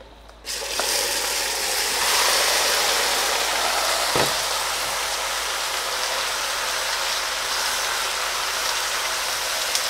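Seasoned pork pieces tipped into a pot of hot oil and caramelised brown sugar, setting off a sudden loud sizzle about half a second in: the meat hitting the browned sugar for a Trinidad-style stew. The frying sizzle carries on steadily, with a single knock about four seconds in.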